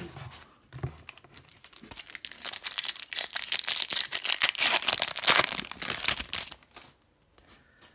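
Foil wrapper of an Upper Deck Series 1 hockey card pack being torn open and crinkled by hand: a dense crackling that builds up over the first couple of seconds and stops shortly before the end.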